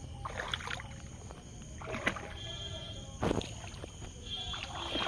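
Water splashing and sloshing as people wade through shallow backwater, in a few irregular swishes; the loudest comes about three seconds in.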